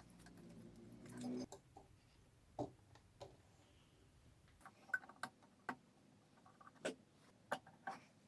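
Faint, scattered light clicks and knocks, like objects being handled. A low hum stops suddenly about a second and a half in.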